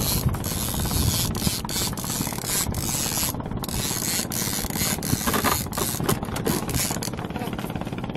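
Fishing reel ratcheting in a rapid, continuous run of clicks while a hooked fish is fought on the line.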